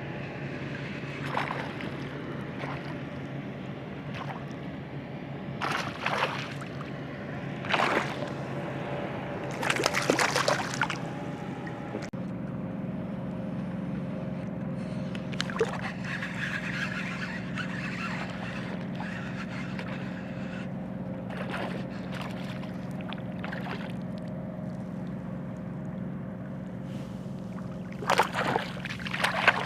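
A boat motor running steadily in the background, its note changing about twelve seconds in, with several short splashes of water, the loudest around ten seconds in and near the end.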